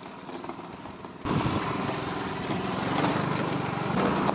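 A vehicle engine running steadily close by. It cuts in suddenly about a second in, after a short stretch of quiet outdoor background.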